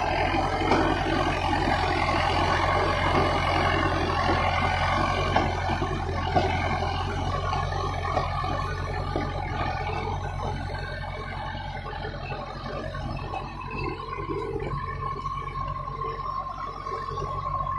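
Backhoe loader's diesel engine running steadily under load as the front bucket works through a pile of broken rock, with a few sharp clatters of stone in the first half. A steady whine comes in near the end.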